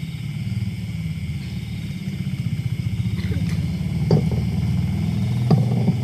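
A steady low rumble that slowly grows louder, with a few faint knocks in the second half.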